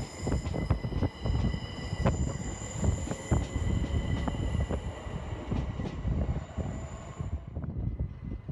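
Class 387 Gatwick Express electric multiple unit running past along the platform: a steady high electric whine of several pitches over the rumble and irregular clicking of the wheels on the track. The whine fades out near the end.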